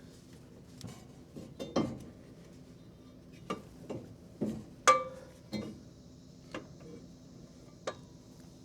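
Irregular metal clinks and knocks as the cast-iron exhaust manifold and gasket are worked into place against the engine, about ten in all. The loudest comes about five seconds in and rings briefly.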